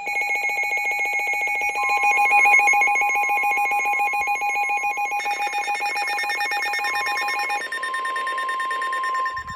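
Several NOAA weather radios alarming together: rapid beeping from the radios' built-in alert alarms over the steady 1050 Hz weather radio warning tone, which comes in about two seconds in. A second, higher beeping alarm joins about five seconds in, and the first beeping stops about two seconds before the end.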